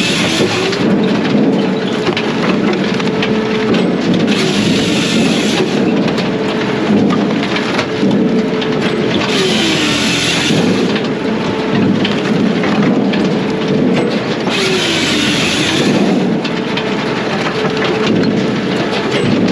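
Brute Force USA 18-24HD diesel firewood processor running under load. A work cycle repeats about every five seconds: the engine note dips briefly and a harsher burst lasting a second or two rises over the steady machine noise.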